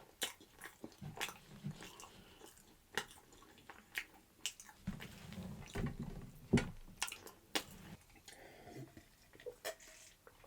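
A person eating close to the microphone: chewing and biting food, with irregular wet mouth clicks and smacks.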